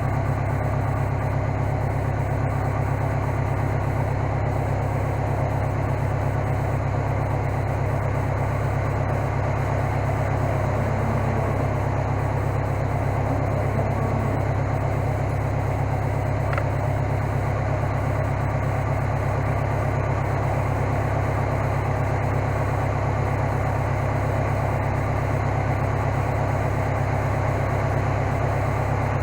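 Engine idling steadily, a low even drone with no change in speed.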